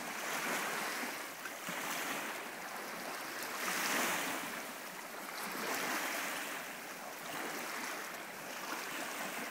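Small lake waves lapping and washing against shoreline rocks, swelling and fading every couple of seconds.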